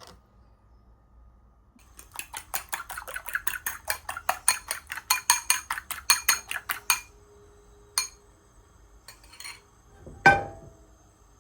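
A hand whisk or utensil beating quickly in a bowl, about six even strokes a second for some five seconds, then stopping. A single loud clink with a short ring follows near the end.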